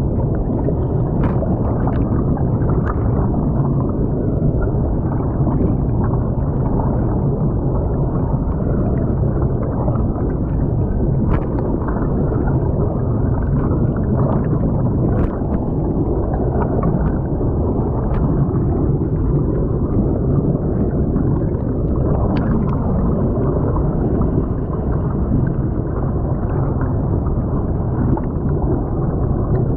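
Muffled underwater rushing of creek water, picked up by a camera lying submerged on the creek bed, with a handful of sharp clicks scattered through it.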